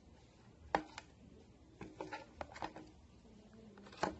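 Light clicks and taps of a metal spoon against a plastic tub and of hands handling a slime-filled balloon, with a sharp click about three-quarters of a second in and another near the end.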